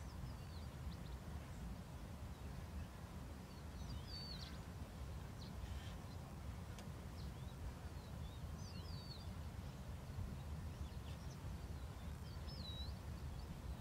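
Small birds giving short chirps and whistled calls every few seconds over a steady low rumble.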